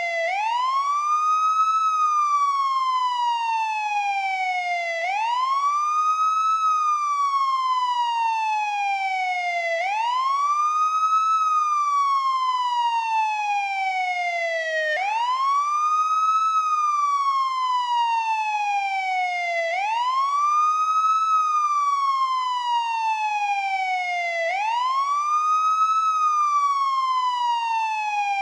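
Police siren on its wail setting: one tone sweeps up quickly, then slides slowly back down, repeating about once every five seconds.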